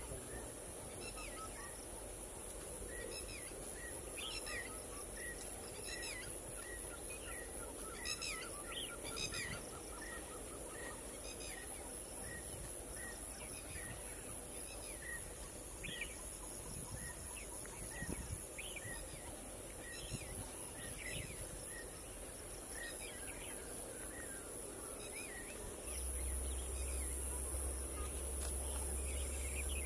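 Birds calling: a short chirp repeated about twice a second and a brief trill, over a steady high insect hiss. A low rumble comes in near the end.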